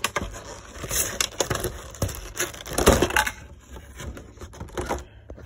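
Clear plastic insert tray of a trading-card collection box crackling and clicking as it is pulled open, with the loudest cracks about a second in and near three seconds.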